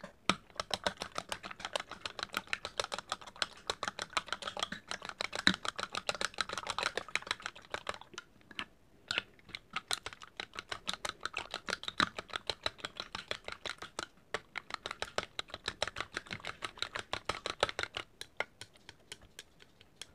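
Raw eggs being beaten with a utensil in a glass measuring jug: rapid clicking of the utensil against the glass, several strikes a second, with a short pause about eight seconds in.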